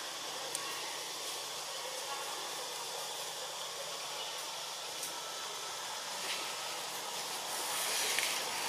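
Steady high hiss of outdoor background noise with no distinct calls, a few faint clicks, and a slight rise in level near the end.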